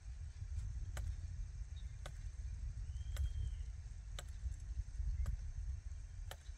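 Hand-held jab planter (matraca) clacking sharply about once a second as it is jabbed into the soil and snapped open to drop corn seed, over a steady low rumble.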